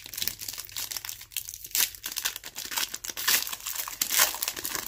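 Foil trading-card pack wrapper crinkling and tearing as it is pulled open by hand, a dense, irregular run of crackles.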